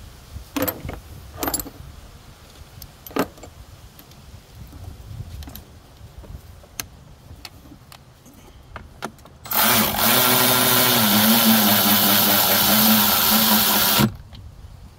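Cordless electric ratchet running steadily for about four and a half seconds on an engine cover fastener, its pitch dipping slightly partway through, then cutting off sharply. Before it, a few light clicks and knocks of the plastic engine cover being handled and fitted.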